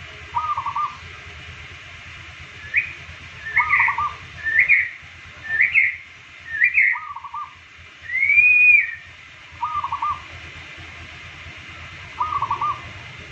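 Caged zebra dove (perkutut) cooing: short rolling coos repeated every few seconds. In between comes a run of five higher, rising whistled notes, then one longer arched note.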